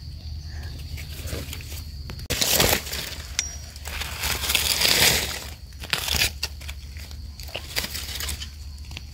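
Dry leaf litter rustling and crackling as hands brush and push aside fallen leaves on the forest floor, with louder rustles about two and a half and five seconds in.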